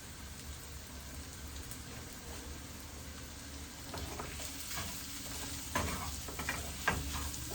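Spiced beef fry sizzling in a pan. About halfway through, a spoon starts stirring it, with several scrapes and clinks against the pan.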